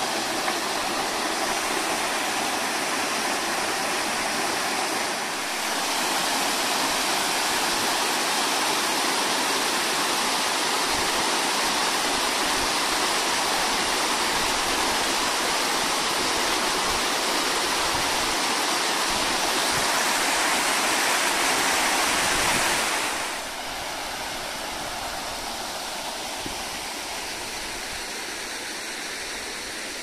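A small mountain waterfall pouring over rock into its pool: a steady rush of water noise. It grows louder a few seconds in and drops suddenly to a quieter level about three quarters of the way through.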